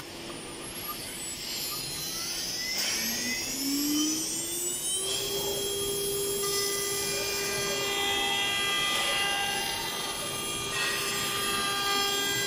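CNC router spindle spinning up with T6 loaded: a rising whine over the first five seconds, then running at a steady pitch.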